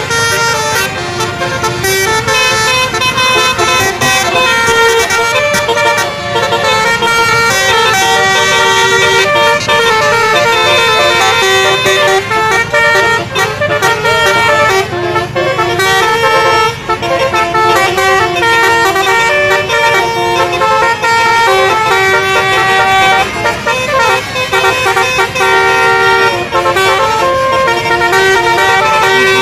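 Telolet basuri bus horn: a bank of tuned air horns on a bus playing a melody, loud, in quickly changing notes without a break.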